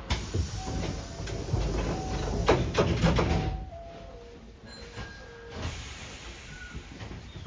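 Hankyu 5300 series train's pneumatic sliding doors opening at a station stop: a sudden burst of air hissing, then a few sharp clattering knocks, after which it falls to a quieter steady hum.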